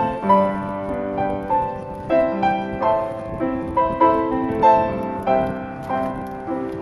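Piano music, a melody of single notes struck about two a second over sustained chords.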